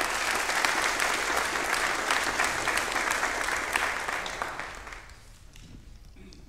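A church congregation applauding, a dense patter of many hands clapping that dies away about five seconds in.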